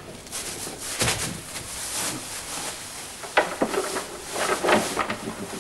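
Shuffling movement on a straw-covered floor, with a few irregular wooden knocks and clatters: about a second in, around three and a half seconds in, and again between four and a half and five seconds in.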